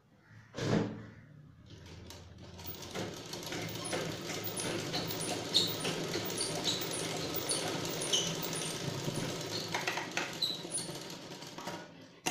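Sewing machine stitching a seam through fabric: it starts about two seconds in, runs steadily with a light regular ticking, and stops near the end. A short knock comes just before it starts.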